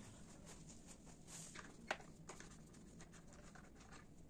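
Near silence with faint scattered clicks and one sharper click about two seconds in: a nut driver working the screws of a motorcycle's plastic headlight cowl.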